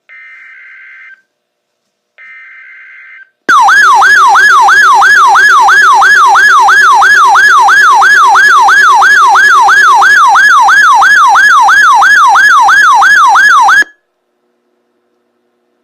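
NOAA Weather Radio alert for the Required Weekly Test: two short bursts of the buzzing SAME digital header tones, then a loud warbling siren-like alarm, sweeping about three times a second for about ten seconds before cutting off.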